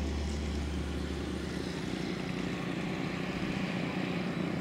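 Steady road and engine noise inside a moving car. A strong low hum fades out after about a second and a half, leaving an even rumble.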